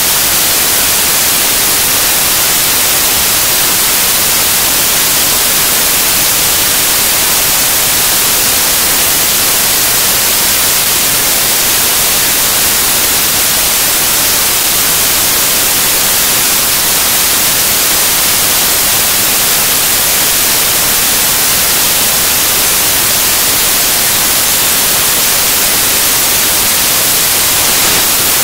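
Loud, steady static hiss, brightest in the high pitches and unchanging throughout, with no other sound standing out of it.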